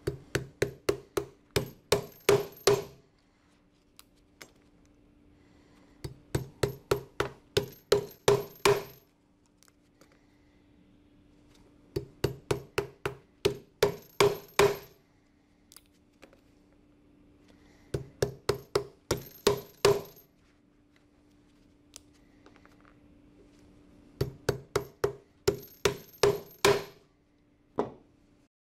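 Claw hammer driving single steel rivets of Flexco SR rivet hinged fasteners through a conveyor belt into the MSRT applicator tool, for the rivets' initial set. Five runs of quick metallic strikes, about four or five a second, each run lasting about three seconds, and then one lone tap near the end.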